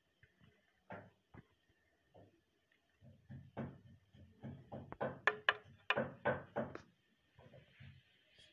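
Utensil knocking and clattering against a bowl while the black chickpea chaat is mixed: a few isolated knocks, then a quick run of sharp clinks and taps in the second half.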